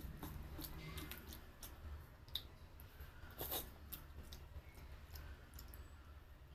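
Quiet hand-eating sounds: scattered soft wet clicks as fingers mix cooked rice with egg curry on a steel plate. One sharper click comes a little after halfway.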